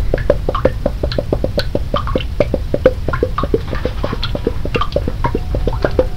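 Water drops dripping and plinking in a fast, even patter, about six or seven a second, with scattered higher-pitched plinks among them.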